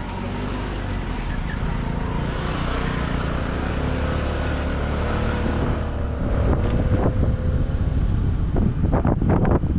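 Scooter engine running as the scooter rides off along the road. Wind noise on the helmet-mounted microphone grows louder and gusty during the last few seconds as it picks up speed.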